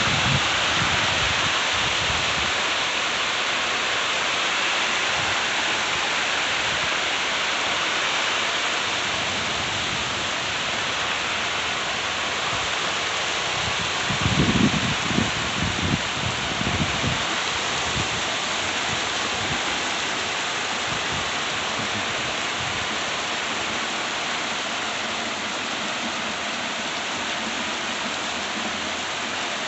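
Heavy rain pouring down in sheets, a steady dense hiss of rain hitting the ground and surfaces. A brief low rumble swells up about halfway through.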